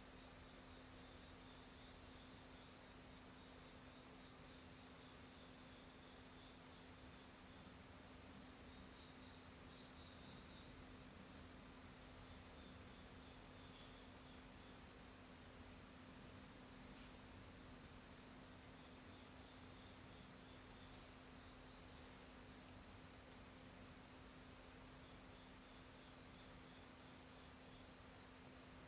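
Faint, steady high-pitched trilling of night insects that slowly swells and fades, over a low steady hum.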